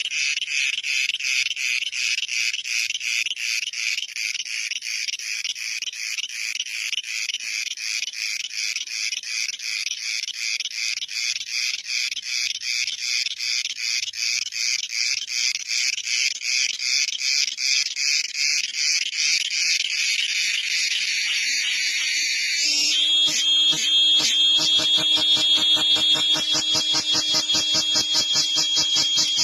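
Cicadas singing: a loud, rapidly pulsing high-pitched buzz. A little over three-quarters of the way through, it changes abruptly to a louder buzz with a lower droning hum underneath, still pulsing.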